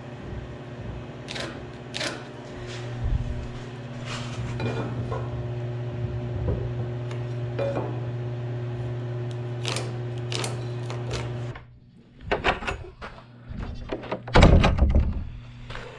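Light taps and clicks of a metal speed square and marker on a pine board, over a steady low hum. The hum stops suddenly about three-quarters of the way in, and a loud burst of handling knocks and rustling follows near the end.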